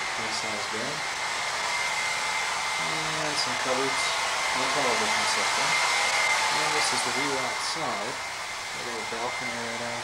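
Room air-conditioning unit running: a steady rush of air with a constant high whine.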